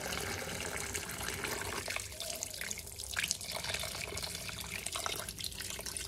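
Kitchen tap running cold water into a glass bowl of scalded chicken pieces, the stream splashing into the water already in the bowl. The flow sounds steady at first, then uneven and splashier from about two seconds in.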